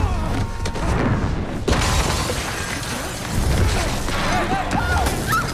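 Action-film fight sound effects: heavy crashes and smashing debris as a body is hurled into walls, over a low booming rumble, with a sudden hard hit about one and a half seconds in.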